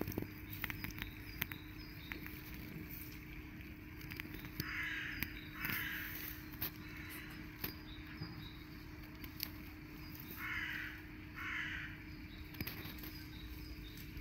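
Crow cawing: two harsh caws close together, then two more about five seconds later. Faint small-bird chirps and scattered light clicks are also heard.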